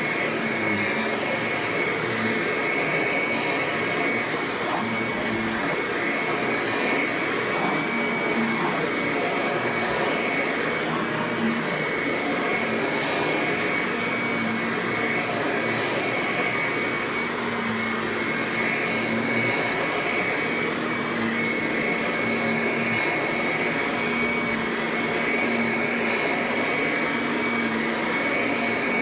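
Kirby Ultimate G Diamond Edition upright vacuum running steadily on high speed, its 7-amp direct-air motor giving a constant high whine over a low hum.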